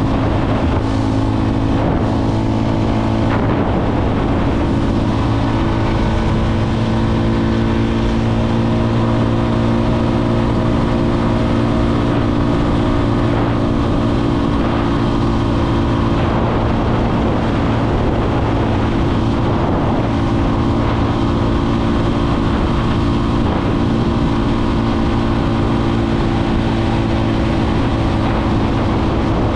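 Motorcycle engine running at a steady cruising speed, an even drone with no revving, over steady wind and road noise.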